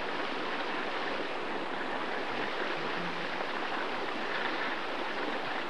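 Hot water boiling and spurting from a geothermal spring vent, a steady rushing noise.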